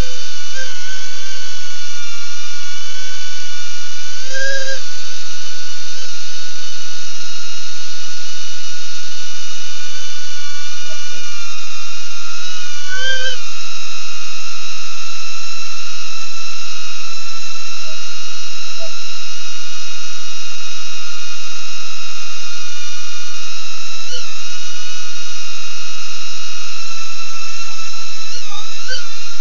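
BetaFPV Aquila16 FPV drone's motors and propellers whining at a steady high pitch, with brief rises in pitch several times as the throttle changes.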